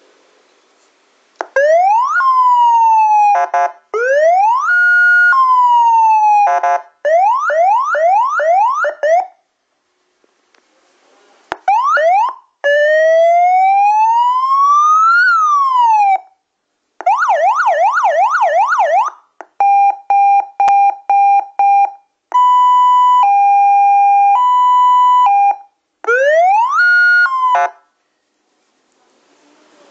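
CJB100A electronic police-escort siren module cycling through its tones one after another: slow rising and falling wails, fast yelping sweeps, a rapidly pulsed tone and a two-tone hi-lo. Each pattern lasts a few seconds, with short gaps between them.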